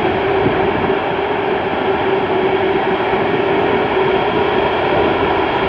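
Boeing 747-8 freighter's four GEnx turbofan engines running at low taxi power as the jet rolls slowly on the runway: a steady, loud jet roar with one held tone running through it.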